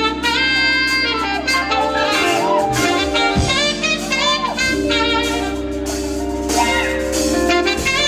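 Live jazz band: a saxophone plays a melody of held and sliding notes over a steady bass line and drum kit.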